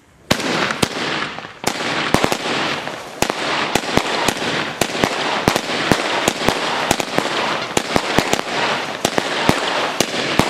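A 16-shot consumer firework cake firing. About a third of a second in, a rapid, uneven series of sharp bangs from shots and bursts begins, with continuous crackling between them.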